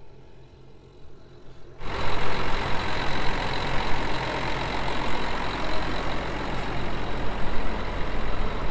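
John Deere 9400 four-wheel-drive tractor's diesel engine running steadily and loudly, heard close up. It cuts in suddenly about two seconds in, after a faint low rumble.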